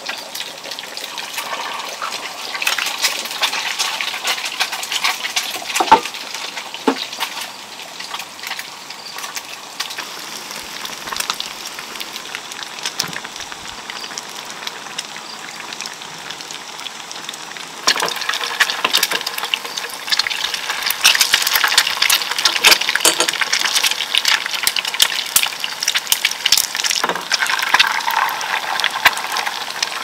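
Cooking sounds: eggs frying in hot oil in a pan, sizzling and crackling, alongside a pot of rice porridge being stirred. The sizzle grows louder a little past halfway, and there are a couple of sharp utensil knocks early in.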